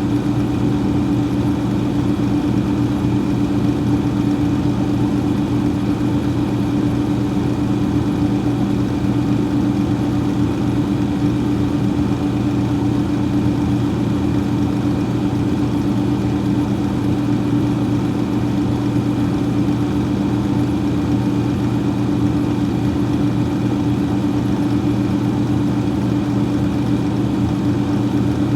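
Freezer fan running with a steady, unchanging hum and a whoosh of air.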